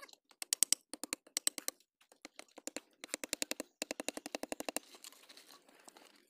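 Rapid knocking as a machete strikes the top of a split bamboo stake, driving it into the soil: two fast runs of sharp knocks, roughly eight a second, then fainter scraping near the end.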